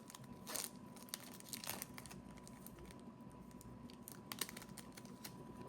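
Faint handling of trading cards and a foil pack wrapper: small scattered clicks and short rustles as cards are slid and the pack is worked open.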